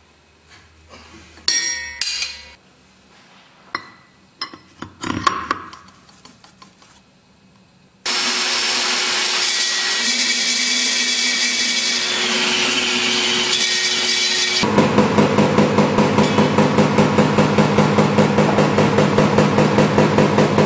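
A few handling knocks and clanks, then an electric concrete drill starts suddenly about eight seconds in and runs loud and steady. A few seconds later its sound turns into a fast, even pulsing of about four beats a second.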